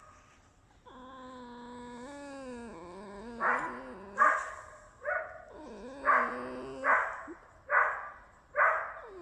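Pet red fox whining: one long, drawn-out pitched whine, then a string of short squeaky yelps about one a second.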